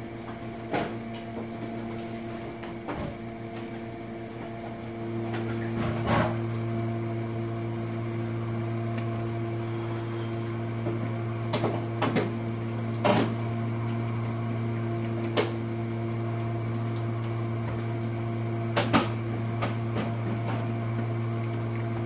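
Jenn-Air dishwasher running its rinse-only cycle: a steady motor hum that gets louder about five seconds in, with scattered clicks and knocks.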